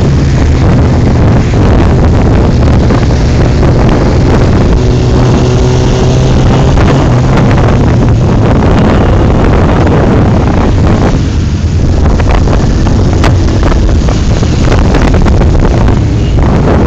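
Loud, steady running of motorcycle engines in a riding column, heard from among the bikes on the move, with wind buffeting the microphone.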